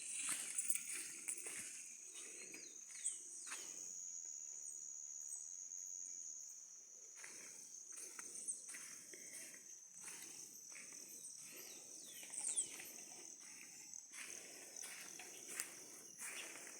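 A steady high-pitched drone of insects, with irregular rustling like steps through vegetation and a few short high chirps.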